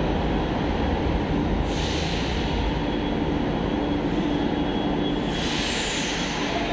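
Delhi Metro train at the platform: a steady hum and rumble from the train, with its doors closing and the train starting to move off. Bursts of hiss come about two seconds in and again about five seconds in.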